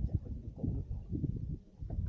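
Wind buffeting the microphone on an open boat, an irregular low rumble with muffled knocks from handling.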